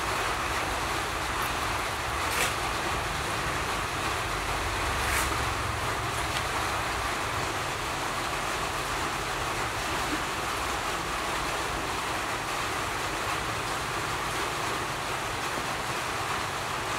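Steady rushing noise throughout, with a few short sharp clicks in the first five seconds.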